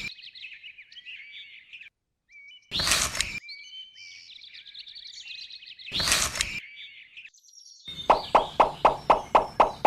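Birds chirping and twittering, interrupted three times by a short, loud burst of noise, about three seconds apart. Near the end a rhythmic track begins, about four beats a second.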